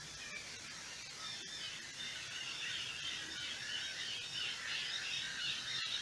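Dense chorus of high-pitched animal calls at night, a continuous chatter that grows louder about two seconds in.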